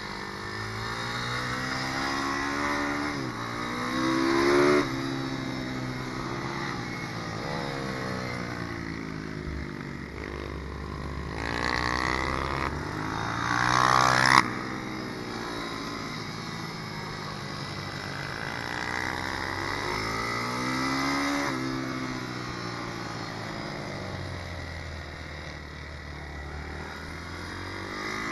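A Malcor Super Racer 190 pit bike's 190 cc four-stroke single-cylinder engine, heard from on board, revving up and down through the corners and straights. It climbs hard about 4 seconds in and again around 14 seconds, where the throttle is chopped abruptly.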